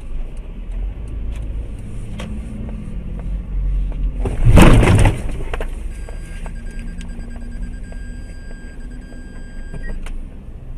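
Steady low vehicle rumble, broken about halfway by a sudden, loud, noisy crash lasting roughly a second: a car collision caught on the dash camera.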